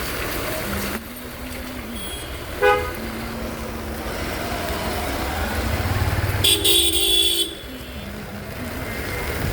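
Road traffic with vehicle horns honking: a short toot, then a louder horn blast lasting about a second.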